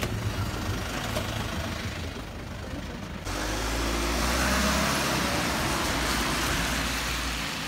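City bus engine running, heard inside the bus at the door. About three seconds in there is an abrupt cut to the bus heard from outside as it pulls away: its engine noise swells, then eases off.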